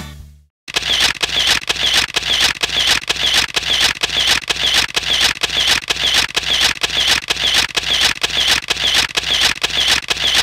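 Camera shutter sound from a phone taking selfies, clicking over and over at an even pace of about three to four shots a second, starting about half a second in.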